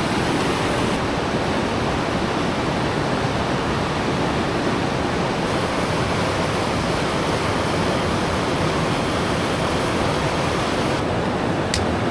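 Fast, clear stream rushing over small cascades and rapids: a steady, even rush of water. A single faint click comes near the end.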